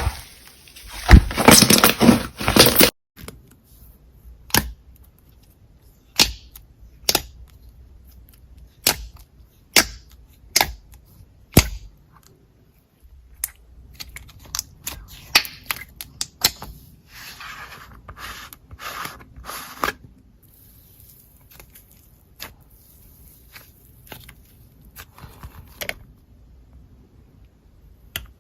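Slime being pressed and stretched by hand, giving a run of sharp pops and clicks as air pockets burst. For the first few seconds it makes a dense, loud crackling squish.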